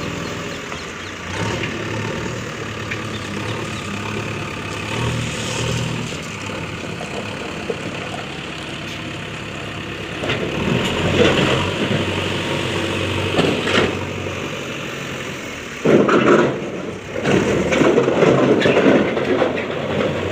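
Diesel engine of a backhoe loader running at work, steady at first, then louder and rougher from about halfway, with a sudden loud surge near the end.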